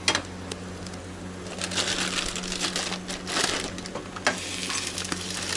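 Irregular clicks, clatter and rustling of kitchen handling at a gas stove, busiest in the middle, over a steady low hum.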